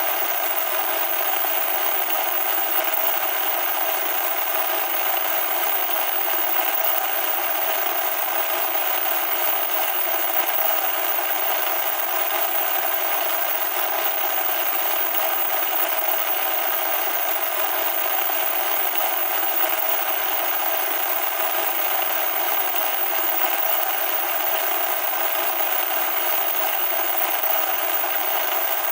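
Loud static noise: a steady hiss with nothing in the bass.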